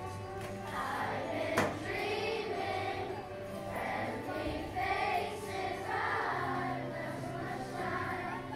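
Children's choir singing together over instrumental accompaniment, the voices coming in about a second in. A single sharp click sounds shortly after the voices start.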